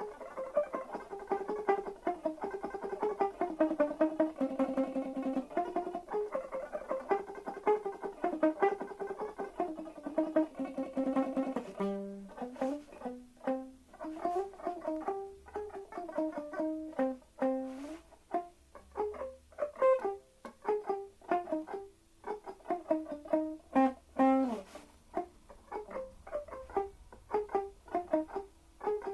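Electric guitar playing a melody through a tremolo effect, the sustained notes pulsing rapidly. About twelve seconds in, it changes to short, separate plucked notes.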